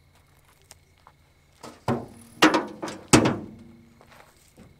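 Savage Gear telescoping folding landing net being dropped into a pickup truck bed: about four loud clanks and thuds close together around two to three seconds in, each with a brief ring.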